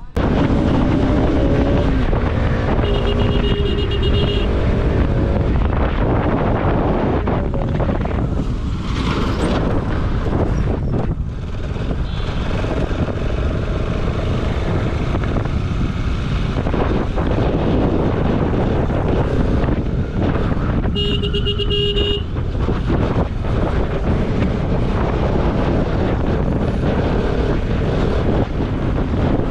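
Riding sound of a Bajaj Pulsar RS200 motorcycle heard from a helmet camera: steady rush of wind over the microphone with the engine running underneath. A vehicle horn honks twice, a beep of a second or so a few seconds in and another about three-quarters of the way through.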